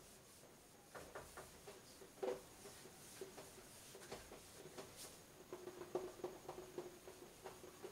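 Whiteboard duster rubbing across a whiteboard as it wipes off writing: faint, repeated short strokes with a light squeak, coming faster in the second half.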